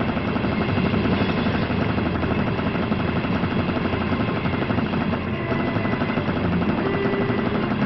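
Fast, steady mechanical rattling clatter of cartoon action sound effects, without music.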